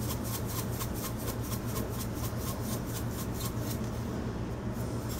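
Stainless steel seasoning shaker shaken quickly over a steel mixing bowl, the grains rattling in an even rhythm of about six shakes a second that eases off after about three and a half seconds. A steady low hum runs underneath.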